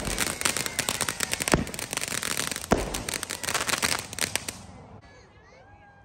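Ground firework fountains crackling densely as they spray sparks, with two louder bangs among the crackle, then dying away about four and a half seconds in.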